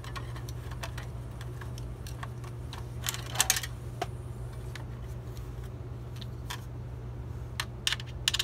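Scattered light clicks and taps of small metal parts and tools being handled while taking apart a desktop PC case, loudest in short clusters about three seconds in and again near the end, over a steady low hum.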